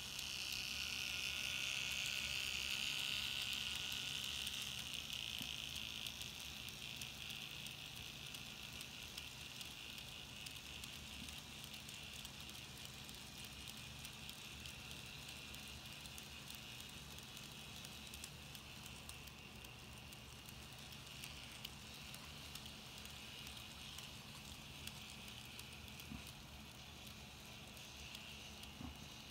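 Model Class 66 diesel hauling a long goods train on a model railway: the locomotive's small electric motor gives a high whine, loudest in the first few seconds, then the wagons roll by with a steady light rattle of small wheels on the track.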